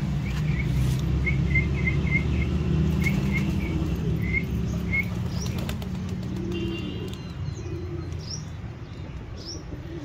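Pigeons' wings flapping as they fly onto an outstretched hand to feed, over a steady low rumble. Small birds chirp through it: a run of short chirps in the first half, then a few higher falling calls later on.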